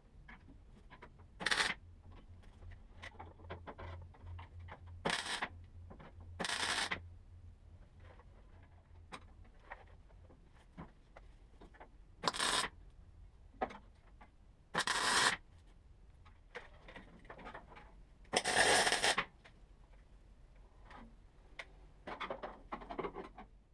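MIG welder tack-welding a steel scuttle panel: about six short bursts of welding, each under a second, spaced irregularly, with a low steady hum and faint ticks in between.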